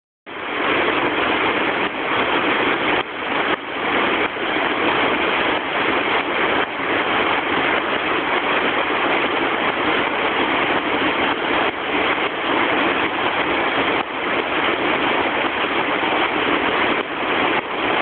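Steady roar of a tall waterfall and the rapids of the rocky stream below it, water rushing without a break.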